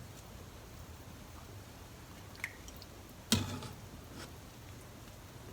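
Dashi broth being ladled from a pot into a cup: faint liquid and dripping sounds, with one sharp clink of the ladle that rings briefly a little past the middle and a few small ticks around it.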